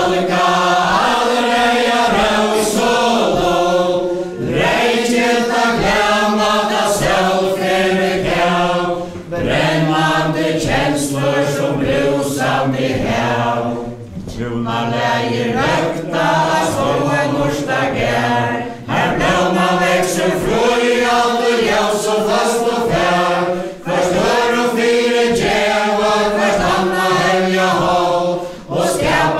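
A mixed group of men and women singing a Faroese dance ballad in unison, unaccompanied, for a chain dance. The verse goes in sung lines of about five seconds each, with brief breaks between them.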